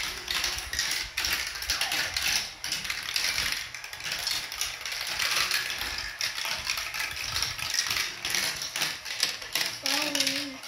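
Powered plastic chain elevator of a Marble Genius marble run running, its chain links making a dense, continuous clicking clatter.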